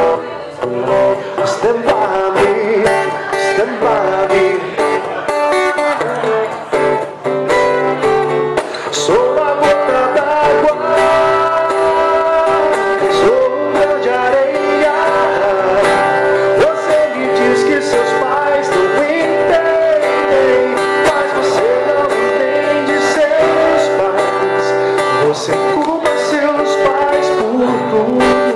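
Live acoustic guitar strumming accompanying a man singing into a microphone.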